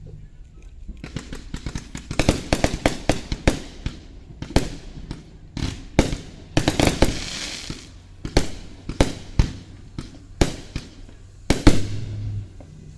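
Fireworks show: aerial shells bursting in quick succession with sharp bangs, a dense rapid string of reports in the first few seconds and a hissing crackle around the middle.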